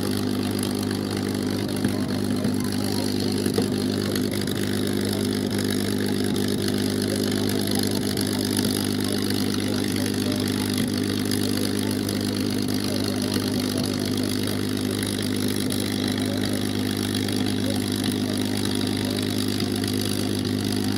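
P-51D Mustang's Packard Merlin V-12 piston engine idling steadily on the ground, its pitch and level unchanged throughout.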